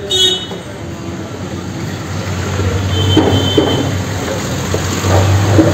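A row of large metal Tibetan prayer wheels being spun by hand one after another, rumbling as they turn on their spindles. The rumble grows louder after about two seconds, with a brief high squeak about three seconds in.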